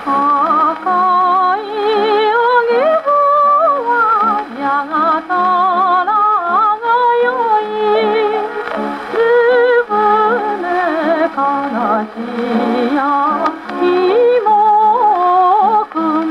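A 78 rpm shellac record of a 1940s Japanese popular song with orchestral accompaniment, played acoustically on a wind-up Victor Victrola. The melody moves in long notes with a strong, wavering vibrato.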